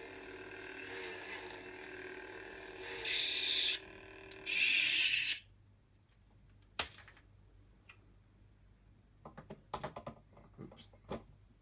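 Force FX toy lightsaber humming with its electronic idle sound, with two louder swells about three and four and a half seconds in, then cutting off suddenly. A sharp click follows, then a few light knocks of handling near the end.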